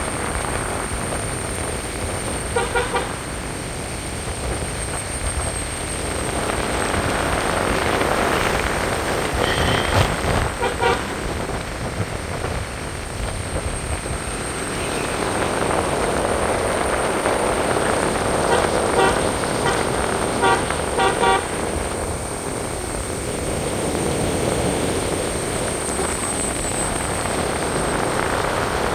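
Road and tyre noise of a car driving, swelling and easing, with short car-horn honks in quick clusters: a couple about three seconds in, more around ten seconds, and a run of several beeps around twenty seconds.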